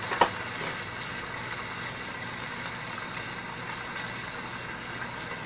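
Burger meat frying in a non-stick skillet: a soft, steady sizzle, with one small click just after the start.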